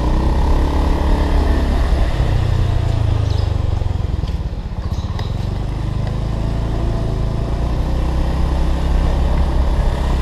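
A Honda Beat scooter's small single-cylinder four-stroke engine running as it rides along. It eases off briefly about halfway through, then picks up again.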